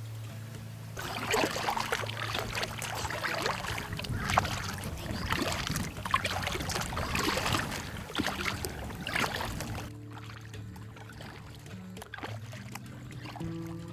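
Kayak paddle blades dipping and splashing in the water, stroke after stroke, heard close, from about a second in until about ten seconds in, with music playing quietly underneath.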